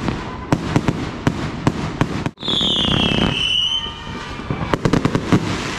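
Consumer fireworks going off in rapid pops and bangs, with a high whistle falling slightly in pitch for about a second and a half from about two and a half seconds in, then another cluster of pops near the end.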